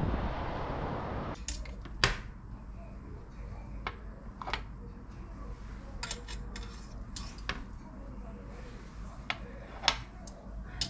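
Metal kitchen tongs clacking and whole dried yellow corvina being set down on a metal oven tray: a handful of separate sharp clicks and knocks, the loudest about two seconds in and near the end. Background music cuts off about a second in.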